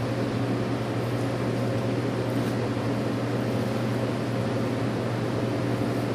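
Steady machine hum with an even fan-like hiss over it, unchanging in level.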